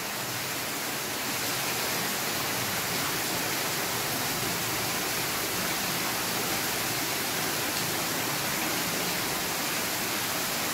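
Water pouring down the rock inside a flooded mine tunnel and running over its stony floor: a steady rushing noise.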